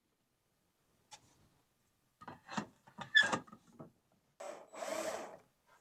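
Ceiling fan hardware being worked by hand: a single click, then a quick run of clicks and knocks, then two short rasping noises near the end as screws are worked into the fan's metal parts.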